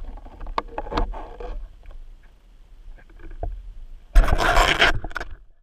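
Underwater speargun being fired at a target: a few scattered clicks and knocks, then about four seconds in a sudden loud crack followed by under a second of noisy rushing sound.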